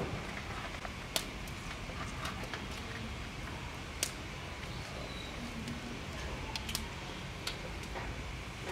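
Handling sounds of hands tucking and pressing wet cloth into the gap between a steel pot and a wooden steamer: a few sharp light clicks and knocks spaced a second or more apart, over a steady low background noise.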